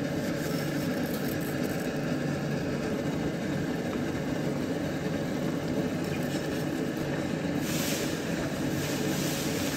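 Steady low rumble of a moving vehicle, with a stretch of higher hiss about eight seconds in.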